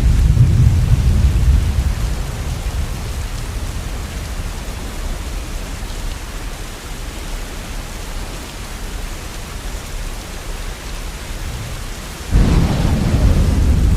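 Steady rain falling, with a low rumble of thunder dying away in the first two seconds. About twelve seconds in a sudden crack of thunder breaks in and keeps rumbling.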